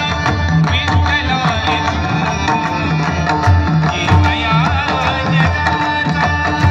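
A large ensemble of pakhawaj drums playing together in rhythm, deep bass strokes under sharp strokes, accompanying an ornamented singing voice in a Marathi devotional abhang.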